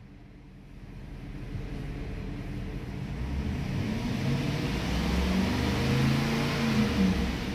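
2005 Chrysler 300's 5.7-litre Hemi V8 idling, then revved up to about 3,000 rpm, the pitch rising and starting to drop back near the end. Heard from inside the cabin.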